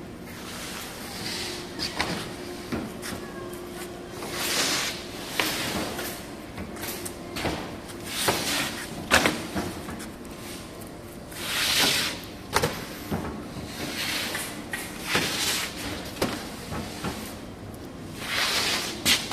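Plywood sheets sliding over and dropping onto a stack of sheets: several scraping swishes about a second long, with sharp knocks and clacks of wood striking wood in between.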